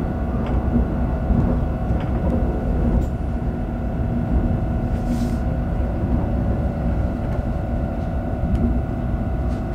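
Cabin sound of an X60B electric commuter train running at speed: a steady rumble of wheels on rails with a constant hum, a few faint clicks, and a brief hiss about five seconds in.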